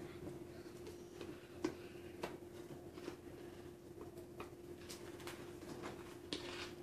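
Knife and spoon scraping mayonnaise out of a jar and spreading it on slices of soft white bread: scattered light scrapes and clicks at an irregular pace. A steady faint hum runs underneath.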